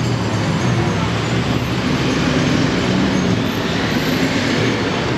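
Steady, loud street traffic noise: a rumble of engines and tyres from vehicles passing close by on a busy city road.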